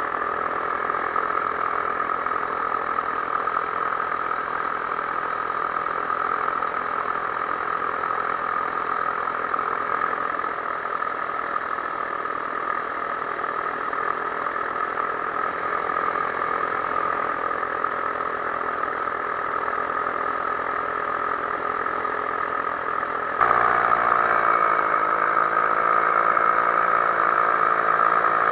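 Paramotor engine and propeller running steadily in flight. About 23 seconds in, the sound suddenly gets louder, and the engine note dips and then rises again.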